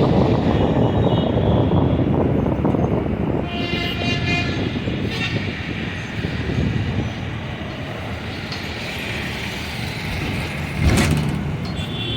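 Steady rumble of vehicle traffic, with horns honking about three and a half seconds in and a sharp knock near the end.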